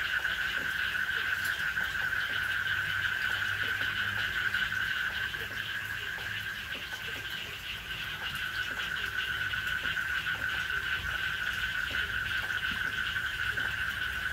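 Steady chorus of frogs at night: a continuous, rapidly pulsing trill that keeps going without a break.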